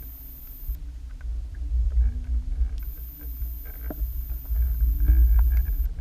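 Uneven low underwater rumble of water flowing over an action camera's housing as the rig is drawn through the water behind the lures, with a few faint clicks and ticks. It swells about a second in and again past the middle.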